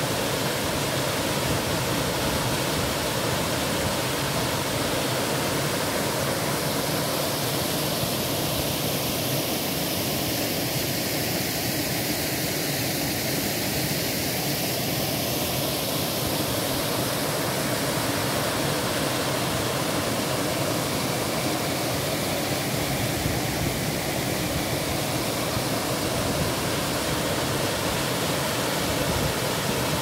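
Waterfall on a small creek, water pouring over a stepped rock ledge: a steady, even rush of falling water. The rush sounds duller for several seconds in the middle.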